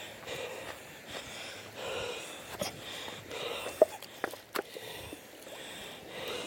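Footsteps crunching over loose, flat creek-bed stones at a walking pace, with a few sharp clacks of rock on rock, the loudest a little after the middle.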